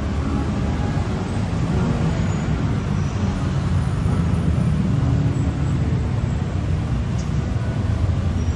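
Road traffic on a city street: a steady, unbroken rumble of passing vehicles.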